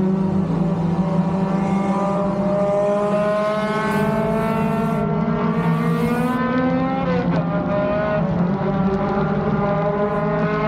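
Race car engine heard from inside the cockpit under racing load, its pitch climbing steadily for several seconds, then falling sharply about seven seconds in before running steadier.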